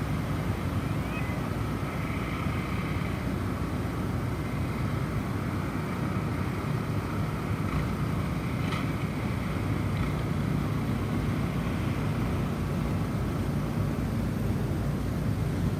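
Snowstorm wind blowing steadily, heaviest in the low range, with soft wind-chime tones ringing faintly over it and a couple of light chime strikes past the middle.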